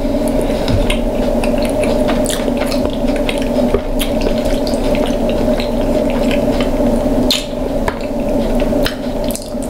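Eating sounds of king crab claws being picked apart: wet squishing and chewing with many small irregular clicks and cracks of shell, over a steady hum.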